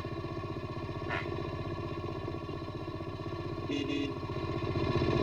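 Motorcycle engine running with a fast, even low putter, getting louder toward the end.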